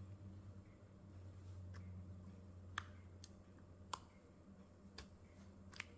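A few faint, sparse metallic clicks as a small keeper wafer is worked back into a Honda S600/S800 ignition switch lock cylinder, over a low steady hum.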